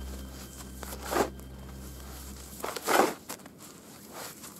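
Snow being dug and thrown with a shovel: a few separate crunching scrapes, the loudest about a second in and again about three seconds in.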